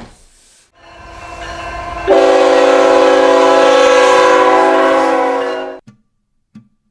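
Train horn blowing one long chord of several notes for about three and a half seconds, then cutting off. Before it, a rumble grows louder for over a second.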